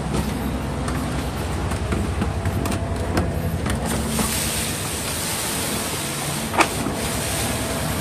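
Concrete mixer pump's engine running steadily on the job site, a low mechanical drone, with a few sharp knocks, the loudest about six and a half seconds in.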